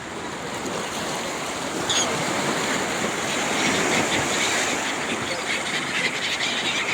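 Sea surf washing in, a continuous rush of waves, a little louder from about two seconds in.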